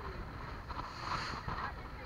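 Motorboat under way: a steady low engine rumble mixed with water rushing and slapping along the hull, and wind on the microphone.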